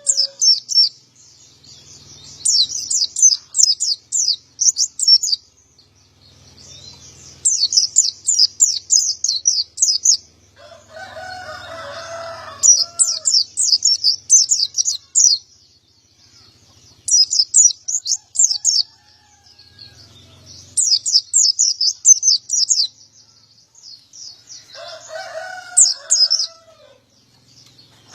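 Male pleci (Zosterops white-eye) singing in full voice: fast, high twittering phrases of two to three seconds each, repeated about eight times with short pauses. A lower, longer call from another bird comes in twice, near the middle and near the end.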